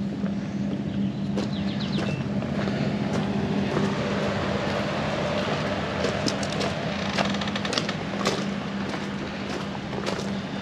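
Footsteps crunching on gravel, with scattered sharp clicks, over a steady low mechanical hum.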